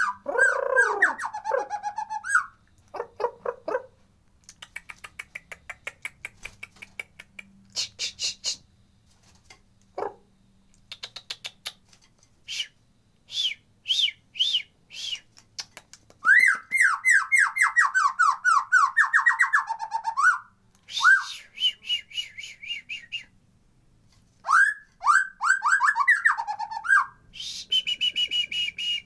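White-rumped shama (murai batu) in full song: a varied run of whistled phrases, fast rattling trains of clicks, and repeated quick rising sweeps, with pauses between phrases.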